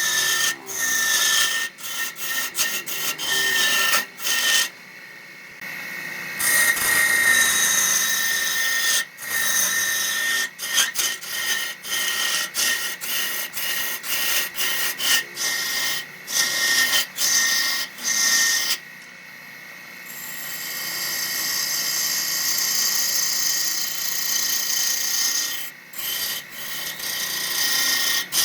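Wood being cut on a spinning wood lathe: a turning tool scrapes and rasps against the wood in many short passes, over a steady high whine. There are two brief pauses, and a smoother, steadier cut runs through the second half.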